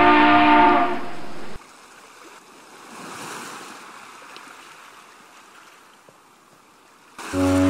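A held, many-toned horn blast dies away about a second and a half in. A faint wash of sea waves and wind follows, and near the end a ship's deep horn starts suddenly, loud and steady.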